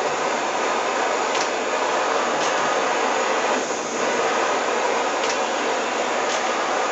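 Gas burner flame hissing steadily as it heats the back of a bronze mirror, with a brief dip in level a little under four seconds in.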